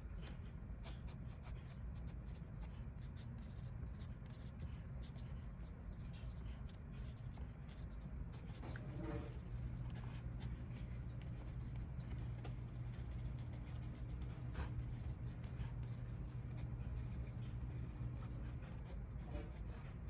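Graphite pencil scratching over sketchbook paper in many short, quick shading strokes, over a steady low hum.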